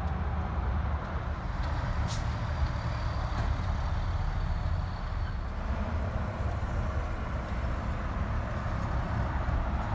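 Scania R480 truck's inline-six diesel engine idling steadily, heard from inside the cab. A single sharp click comes about two seconds in.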